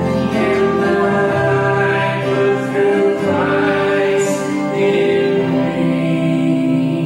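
Church worship band singing a hymn, a man's and women's voices holding long notes, accompanied by acoustic guitar and digital piano.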